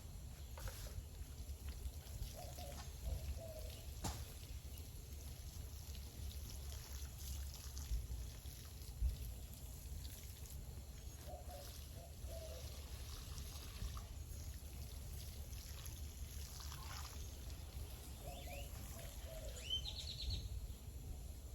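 Homemade liquid fertilizer being poured and trickling from a container onto garden soil, over a steady low rumble; a bird chirps near the end.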